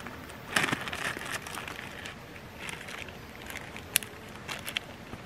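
Clear plastic resealable bag crinkling as it is handled, loudest about half a second to a second and a half in, followed by scattered sharp crackles, the sharpest about four seconds in.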